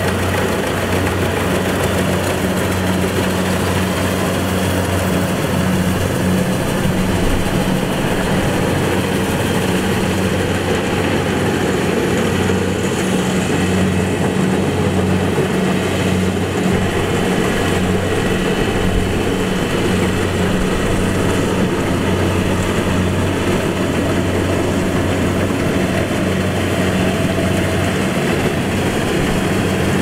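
Kubota DC-70 rice combine harvester's diesel engine running steadily, a constant low drone with no change in pace.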